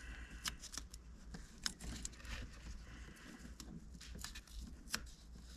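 Faint, scattered light clicks and taps of hands handling a wiring connector and foam padding, about half a dozen small ticks over a low hum.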